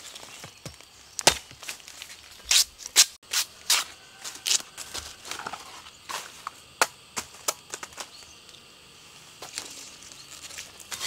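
Machete blade chopping into a red bamboo shoot: a run of sharp chops, the loudest from about one to four and a half seconds in, then a few lighter strikes.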